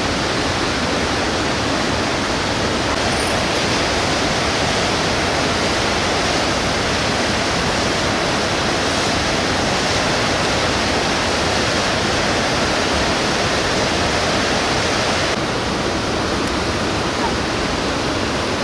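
Loud, steady rush of whitewater river rapids.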